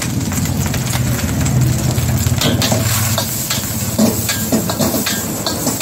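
Metal ladle scraping and knocking against a steel wok as fried rice is stir-fried and sizzles, the knocks coming in quick irregular runs. A steady low rumble runs underneath.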